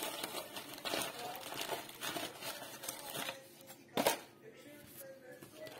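Paper crinkling and tearing as tea bags are pulled out of their sachets and a cardboard tea box is handled, with one sharp knock about four seconds in.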